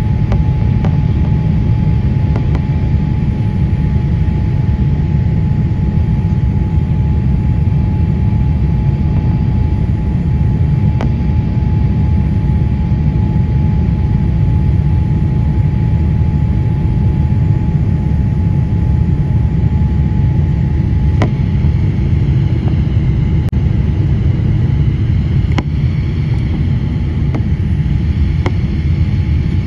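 Boeing 787-8 cabin noise in flight on approach: a steady, loud roar of airflow and engines with a deep rumble. A thin steady whine runs along with it and stops about two-thirds of the way through.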